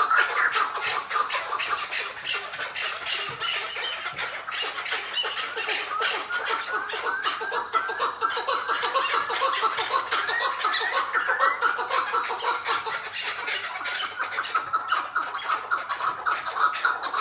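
Caged chukar partridges giving the 'hıngırma' call: a rapid, continuous chattering, with short rising notes in the middle.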